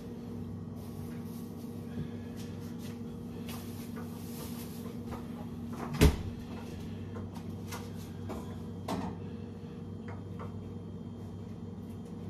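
Kitchen clatter: cupboard or appliance doors and items knocked and clicked shut, with one sharp knock about six seconds in, over a steady low appliance hum.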